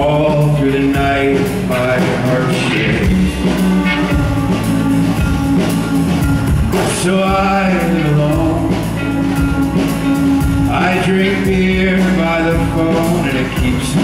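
A male singer singing a song live while playing an acoustic guitar.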